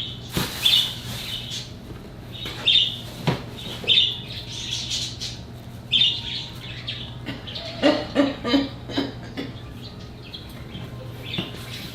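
A bird chirping in short, high calls repeated every second or two, over a steady low hum.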